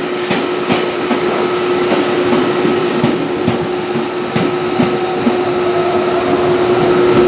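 E231 series 800-subseries electric train cars rolling slowly past along a platform, with a steady hum and irregular knocks from the wheels and running gear.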